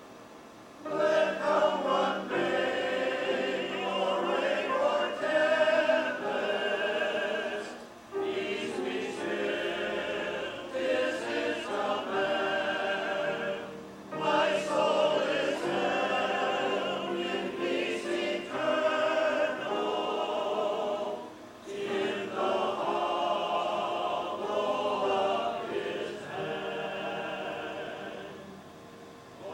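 A choir singing, in phrases of several seconds with short breaks between them.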